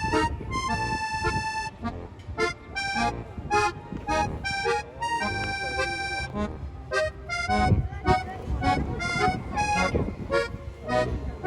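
Background music: a melody of short notes with a few longer held ones, in a reedy, accordion-like tone.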